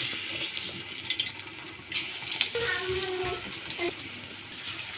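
Water running from a tap into a sink, splashing, switched on just as it begins.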